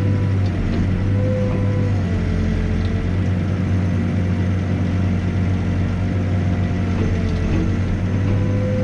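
Backhoe's diesel engine running steadily while digging, with a whine that rises and dips in pitch a few times as the machine is worked.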